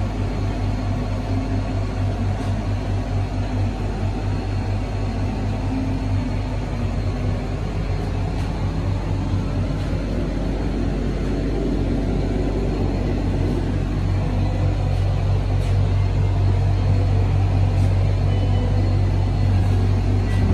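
Steady low rumble and hum inside a moving Ferris wheel gondola.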